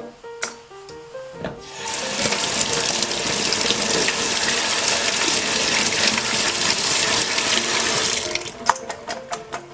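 Kitchen tap running water into a stainless steel mesh colander over a steel sink while vegetables are rinsed. The rush starts about two seconds in and stops about a second before the end, with a few light clicks and knocks before and after.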